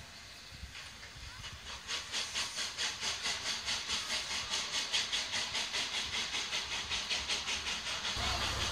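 Two-cylinder steam locomotive 475.111 pulling away: its exhaust beat sets in about two seconds in as a fast, even run of hissing chuffs. Near the end a low rumble suddenly takes over.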